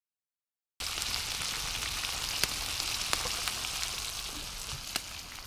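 Battered food sizzling in hot oil in cast-iron skillets over a campfire: a steady hiss with sharp pops now and then. It starts suddenly about a second in.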